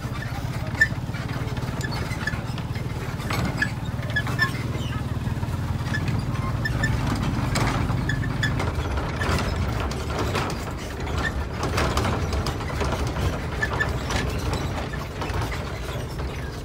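Motorcycle riding along a rough road: a steady low engine drone with scattered rattling and clicking over it.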